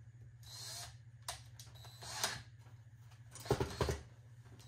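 Cordless drill run in three short bursts against the steel side of a 1956 Vendo 81 Coke machine cabinet, fastening the original ID plate; the last burst is the loudest, with a knock or two. A steady low hum runs underneath.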